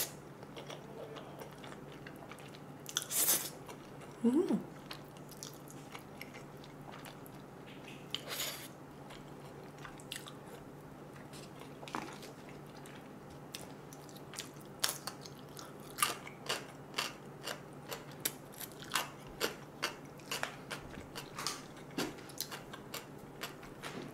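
Close-miked eating of jjajangmyeon noodles: a few noisy slurping strokes in the first seconds, then chewing and biting with short wet mouth clicks, about two a second, through the second half. A low steady hum runs underneath.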